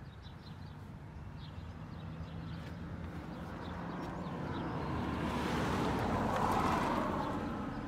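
A vehicle passing by: a rushing tyre-and-engine noise that swells over a few seconds, peaks near the end and starts to fade. Footsteps crunch on gravel underneath.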